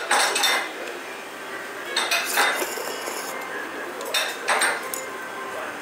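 Eating a bowl of thin noodle soup with metal chopsticks and a metal spoon: utensils clinking against the ceramic bowl, with three short noisy bursts of eating sounds about two seconds apart.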